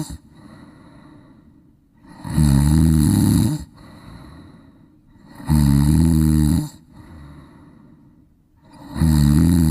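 A cat snoring in a steady rhythm: loud, low-pitched snores a little over a second long, about every three seconds, with a quieter breath between each. There are three snores, the last still going near the end.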